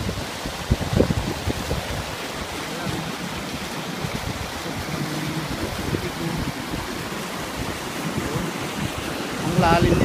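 Fast-flowing stream water rushing and splashing over a rock cascade, a steady wash of noise, with wind rumbling on the microphone.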